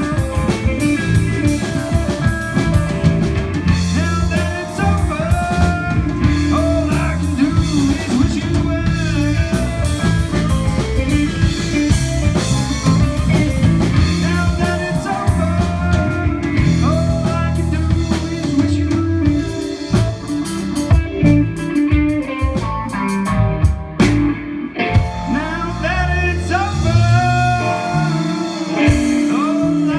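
Live blues band of electric guitar, bass and drums playing a slow blues, the guitar bending notes over the bass and drum groove.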